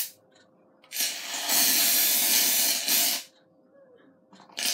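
Gillette shaving foam aerosol can hissing as foam is sprayed out into a plastic tub. One long spray of about two seconds starts about a second in, and a short burst starts just before the end.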